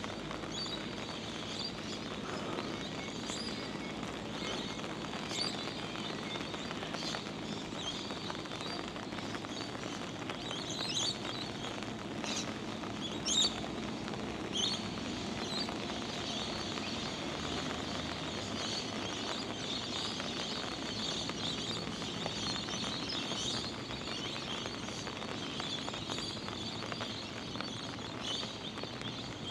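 Birds chirping and calling again and again, with a few louder chirps partway through, over a steady wash of rain pattering.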